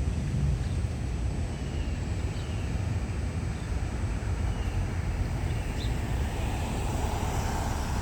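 A few faint, scattered bird chirps over a steady low rumble.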